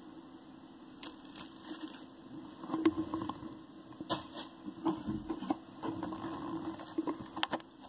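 Packaging being handled during an unboxing: irregular rustles, crinkles and light taps, with a sharper knock a little under three seconds in and a quick pair of clicks near the end.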